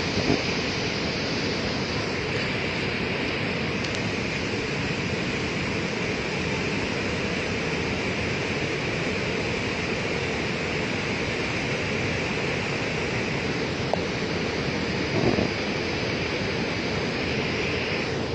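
Floodwater from a burst dam rushing and surging in a muddy torrent, a steady loud rush of water. A short knock is heard about fifteen seconds in.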